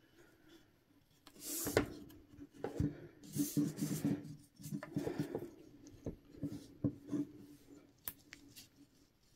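Hands rubbing and smoothing stiff printed cross-stitch fabric stretched on a wooden scroll frame. The fabric rustles faintly, with a few light knocks against the wooden frame.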